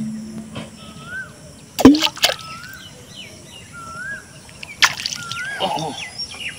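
A bird sings the same short rising-and-falling whistle over and over, about once every second and a half. About two seconds in comes a loud splash and slosh of pond water. Just before five seconds there is a sharp knock.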